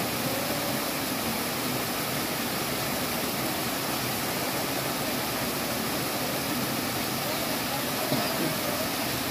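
Steady rush of a shallow cascade of water pouring over sloping rock into a pool.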